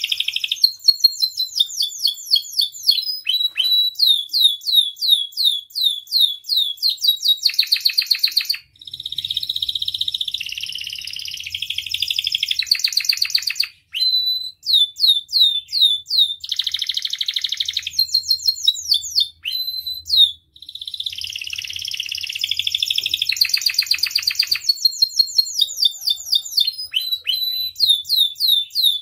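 Domestic canary singing a long, continuous song: runs of fast repeated downward-sliding notes alternate with dense, buzzy rolling trills, broken only by a few very short pauses.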